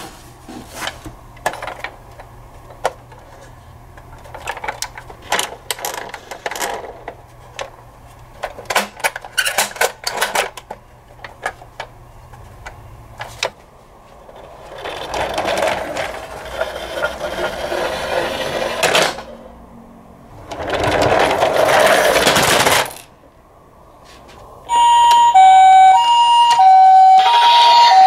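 Plastic toy ambulances clicking and knocking as they are handled. Then a toy ambulance is twice rolled along a wooden shelf with a rumbling wheel noise. Near the end a battery-powered toy ambulance's electronic siren starts, alternating a high and a low tone.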